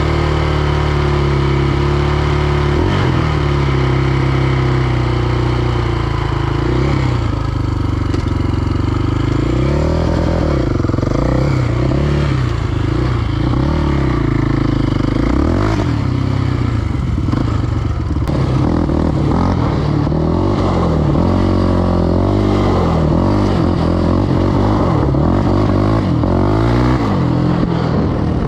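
Quad's single-cylinder four-stroke engine running under load, revving up and falling back again and again as it is ridden over rough ground. Light clattering from the machine comes through over the bumps.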